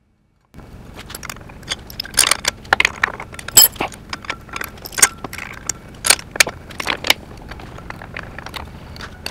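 Irregular metallic clinks and clicks of steel bolts and spacers knocking together as they are handled and fitted to the winch mount, over a faint steady low hum. The clinks start about half a second in.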